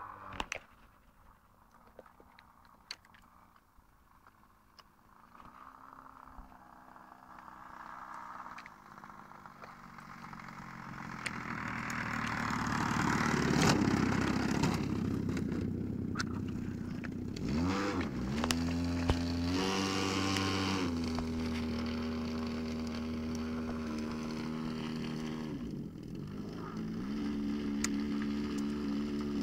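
Engine of a radio-controlled Piper J-3 Cub scale model plane, faint at first and growing louder as the plane lands and rolls close by on the grass. About two-thirds of the way through it revs up quickly and then runs at a steady pitch, dips briefly near the end and picks up again.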